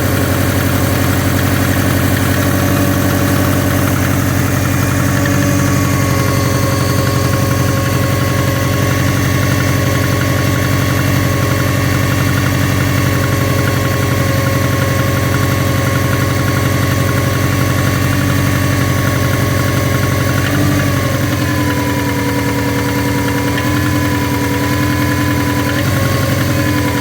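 Subaru Forester SF5's flat-four boxer engine idling with a knock, the fault the engine is being recorded for. About two-thirds of the way through, the idle speed shifts slightly lower and settles.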